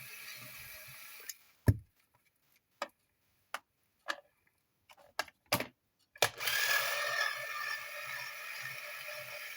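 A series of about eight sharp clicks and knocks, the loudest about a second and a half in, from the plastic housing and tools of a compressor nebulizer being taken apart. A steady hiss drops out for the stretch of clicks and returns a little after six seconds in.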